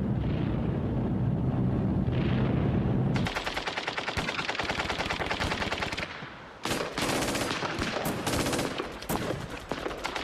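A low rumble for about three seconds, then sustained rapid machine-gun fire, breaking after about six seconds into shorter bursts and single shots.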